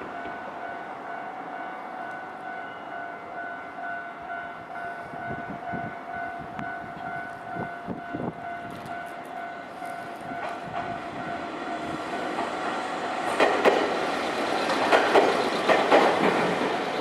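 Level-crossing alarm ringing steadily with electronic bell tones as a JR Kisei Main Line train approaches. From about twelve seconds in, the train passes over the crossing, its wheels clattering loudly over the rail joints.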